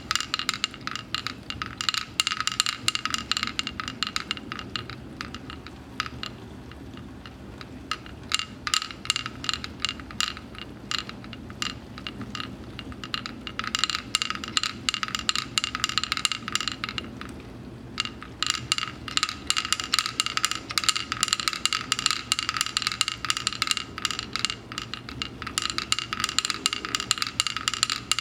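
Wooden pecking-chickens toy being worked: the chickens' heads tap the board in quick, uneven clicking runs, easing off twice before picking up again.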